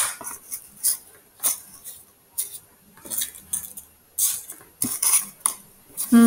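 Dry, ageing leaves crinkling and rustling as they are picked up and slid across a sheet of paper, in a string of short crisp crackles about once or twice a second.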